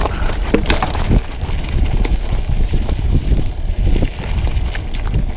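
Wind buffeting the microphone as a Trek X-Caliber 9 mountain bike rolls over a rough dirt trail, with tyres on gravel and scattered clicks and knocks from the bike rattling over the bumps.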